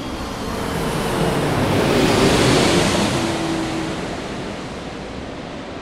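Jet airliner passing overhead: a rushing noise that swells to its loudest about two seconds in and then fades away, with a faint hum that drops in pitch as it goes by.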